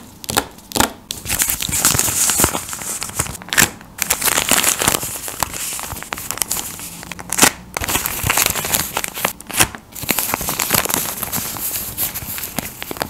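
Hand-drawn paper cutouts being shuffled and handled: steady paper rustling and crinkling, with many sharp flicks and taps as the sheets are leafed through.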